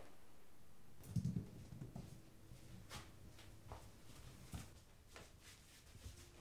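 A low thud about a second in, then scattered footsteps and light knocks on a hard floor as a child runs about.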